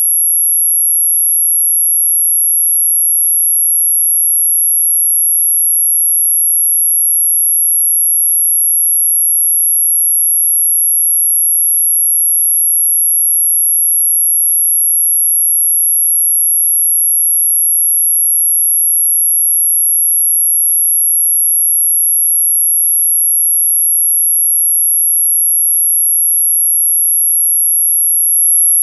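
A single steady high-pitched pure tone at about 11 kHz, held unchanged throughout: an electronically generated sine tone played as a mosquito-repellent sound.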